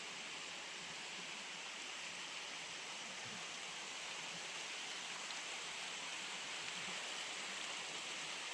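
Steady rushing of a nearby waterfall stream, an even hiss with no change throughout.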